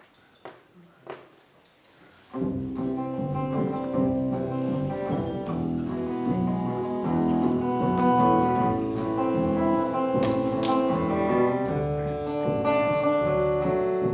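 A few faint taps, then about two seconds in a live acoustic band starts the instrumental introduction of a folk song, led by plucked acoustic guitar over sustained low notes.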